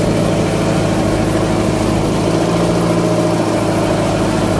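Fishing boat's engine running steadily, a constant low hum with a few held tones.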